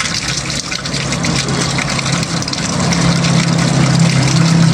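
Tap water running and splashing while hands are washed under it, over a steady low hum that grows louder about a second and a half in.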